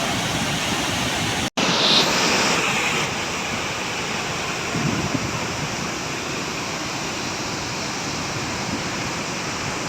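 Steady rush of a waterfall in flood after heavy rain, broken by a split-second gap about one and a half seconds in.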